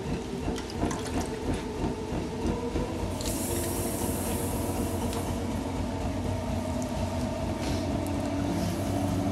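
Handheld gas torch hissing as its flame is played over a freshly thrown clay pot on a potter's wheel, loudest from about three seconds in for two seconds and again near the end. A steady low hum runs underneath, with a few light clicks early on.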